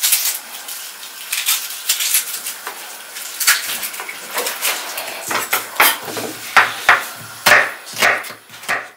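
A kitchen knife tapping and scraping on a wooden chopping board in irregular knocks as garlic and a red onion are peeled and trimmed.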